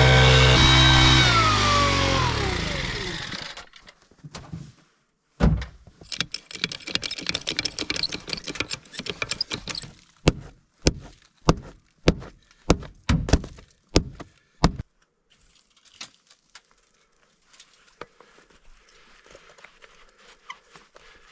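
An engine running steadily, then shut off: its pitch winds down and it dies out within the first few seconds. Sharp metal knocks follow, ending in a run of about eight strong knocks at roughly two a second.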